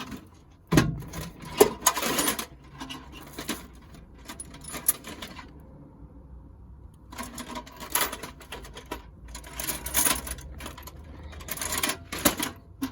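Irregular clicks, rattles and scraping of objects being handled, coming in clusters with a quieter pause about midway, over a steady low hum.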